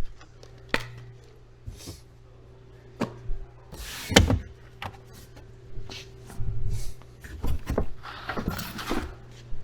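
Trunk trim panels and covers being pulled off and handled: a string of clicks, knocks and rustles, the loudest knock about four seconds in, over a steady low hum.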